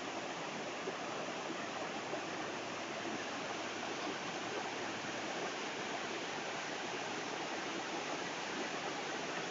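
A muddy river in flood rushing past, a steady, unbroken noise of fast-flowing water.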